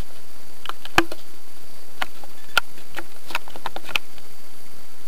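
Steady hiss with about a dozen light clicks and ticks scattered unevenly through it, typical of a handheld camera being moved about.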